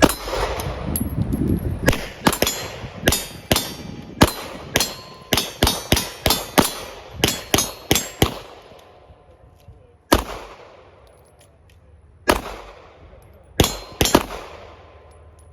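Handgun shots: a quick string of about eighteen rounds over six seconds, then four slower single shots after a pause.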